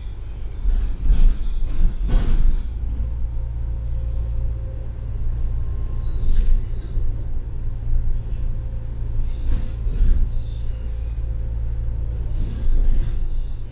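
A double-decker bus in motion, heard from on board: a steady low engine and road rumble with occasional knocks and rattles.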